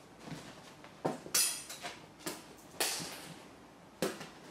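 A Scottish Fold cat jumping onto a leather sofa and scrambling about on its cushions: a run of about five sharp thumps and scuffing rustles, the loudest about a second and a half in.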